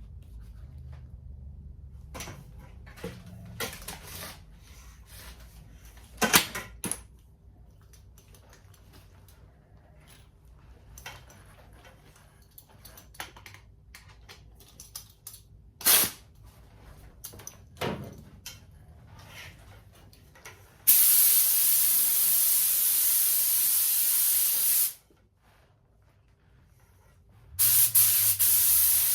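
Spray gun spraying 2K lacquer: a loud, steady hiss for about four seconds that cuts off sharply, then starts again near the end. Before it come scattered clicks and knocks from handling the gun.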